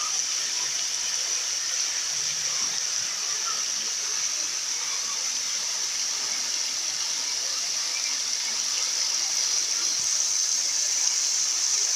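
Waterfall rushing: a steady hiss of falling water that swells slightly toward the end.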